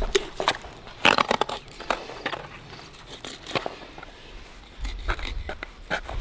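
Knife crunching and crackling through a paddlefish's fin and cartilage as the fins are cut off, with a dense run of sharp cracks about a second in and scattered ones after.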